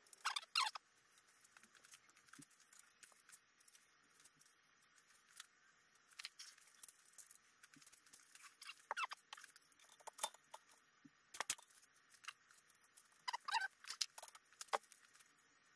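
Faint, scattered light clicks and scrapes of aluminium aircraft parts and rivets being handled, in short clusters every second or two, with the busiest clicking near the end.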